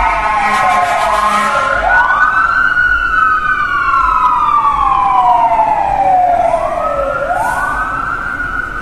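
Emergency vehicle sirens wailing, slowly falling and rising in pitch over several seconds per sweep, with two sirens overlapping out of step.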